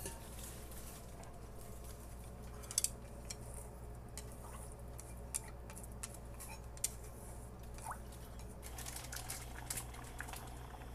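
Faint stirring of rice porridge in a pot on a gas burner: scattered small clicks and drips as a wooden utensil works through the liquid. About two-thirds in, a denser run of soft popping begins as the porridge comes to a bubbling simmer. A steady low hum runs underneath.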